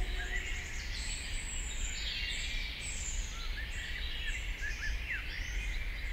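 Dawn birdsong: several birds singing and calling at once, short chirps and whistles overlapping, over a steady low background rumble.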